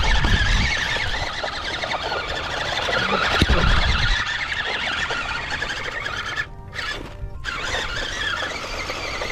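Background music over the high whine of a 1:12 scale LDRC Unimog RC truck's electric motor and gearbox straining, its wheels spinning as it sits stuck on rocks with the tires slipping on the rims. Two low rumbles come near the start and about three and a half seconds in.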